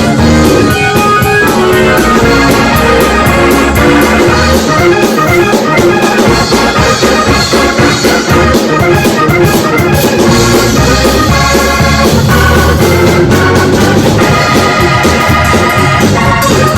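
Instrumental music led by an electric organ playing sustained chords, with drums keeping a beat.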